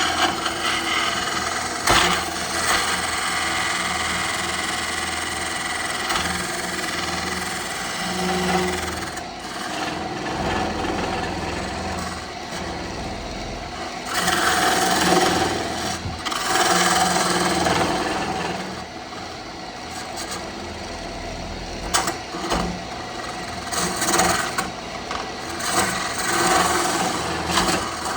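Wood lathe running, with a turning tool cutting the spinning wood in intermittent passes; the cutting noise swells and fades over a steady machine hum.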